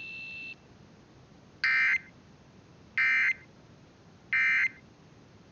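Emergency Alert System end-of-message code: three short, identical bursts of warbling digital data tones (the SAME 'NNNN' EOM sent three times), about a second and a third apart, marking the end of the alert broadcast. A steady high tone cuts off about half a second in.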